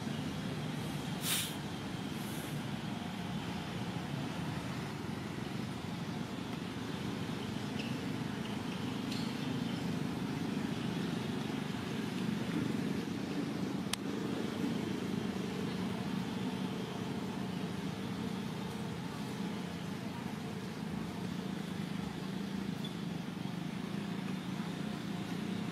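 Steady low rumble of background noise, with a short sharp sound about a second in.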